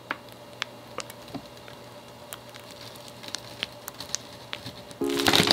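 Vegan whipped cream being squeezed through the nozzle of a piping bag: scattered small wet clicks and crinkles from the cream and the bag. Music starts near the end.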